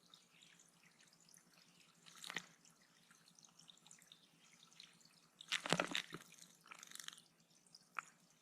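Water dripping into a bird pond, with a sharper splash about two seconds in and a louder burst of splashing around six seconds.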